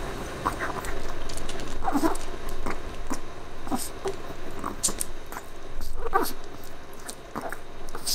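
A chihuahua gnawing and crunching on a calf neck bone, with irregular clicks and crunches of teeth on bone.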